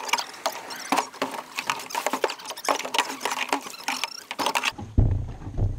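Rapid, irregular light clicking and crackling that cuts off suddenly near the end, followed by a low rumble and a thump.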